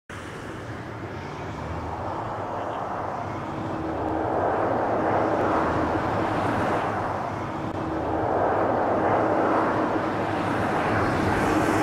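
Airbus A330 jet airliner on final approach with its gear down, the jet engine noise growing louder over the first few seconds as it comes closer, then holding at a steady roar with a humming tone.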